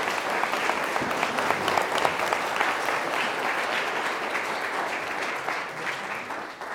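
Audience applauding, a dense patter of many people clapping that dies down near the end.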